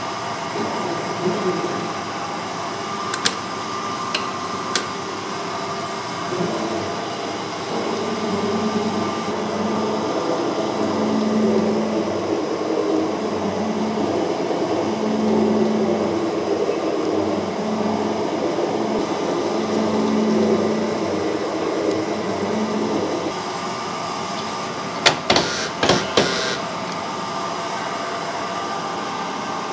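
Cincinnati metal shaper running, with a steady motor hum and a low rumble that swells and fades about every two seconds as the ram strokes. There are a few sharp clicks, several in quick succession near the end, as the tool head is handled.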